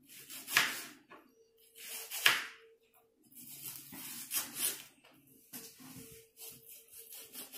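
Kitchen knife slicing through a raw onion onto a plastic cutting board: about half a dozen crisp cuts, irregularly spaced a second or so apart.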